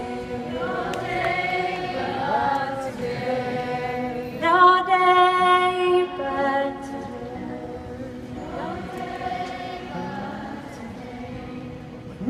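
A woman singing live into a microphone in a concert hall, over quiet band accompaniment. Her notes glide at first, then she holds a long, loud note about four and a half seconds in before easing back to softer phrases.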